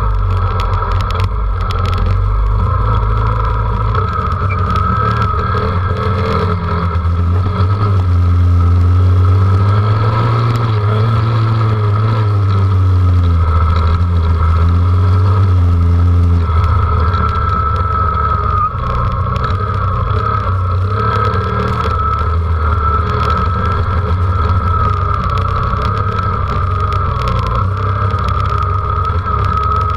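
Dirt bike engine running while riding, its note wavering with the throttle and somewhat louder for a stretch in the middle.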